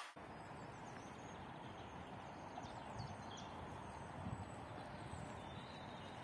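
Outdoor park ambience: a steady wash of background noise with faint, short bird chirps, and a few soft low knocks around the middle.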